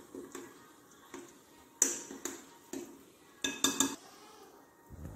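Metal spoon clinking against glass bowls while flour is scooped and mixed. There are a few sharp clinks about two seconds in, then a quick cluster of ringing clinks around three and a half seconds.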